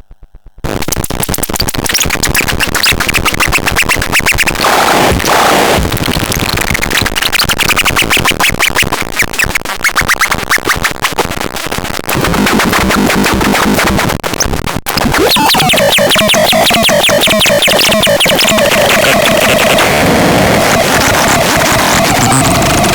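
Harsh, glitchy electronic noise: a dense rapid buzzing and clicking that starts about half a second in. After a brief break about fifteen seconds in, a wavering tone rises out of the buzz.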